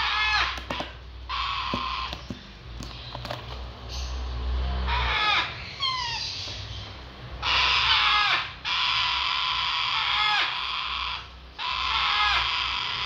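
Parrot chicks begging to be fed: harsh, rasping calls in long stretches of a second or more, broken by short gaps, mixed with short squawks that slide down in pitch.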